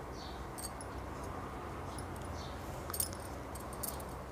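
Faint, light clicks and rustles of a crochet hook working wool yarn, a few small ticks scattered through, the clearest about three seconds in, over a low steady background hum.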